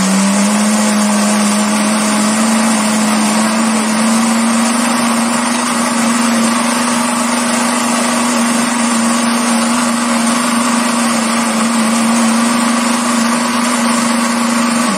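Countertop blender running steadily at speed, its motor whining, as it grinds dry lemon pepper and chimichurri into powder. The motor cuts off suddenly at the very end.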